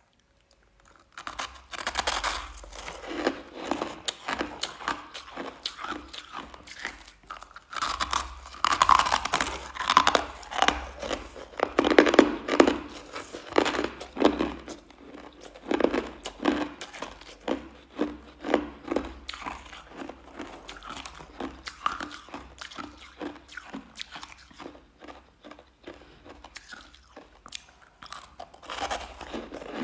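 Crushed white ice being bitten and chewed close to the microphone: a dense run of sharp, crackly crunches that starts about a second in and is loudest in the first half.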